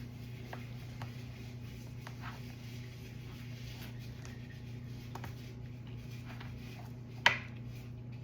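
Quiet handling of a plastic slime container and its contents: soft rubbing with scattered small ticks, and one sharp plastic click about seven seconds in, over a steady low electrical hum.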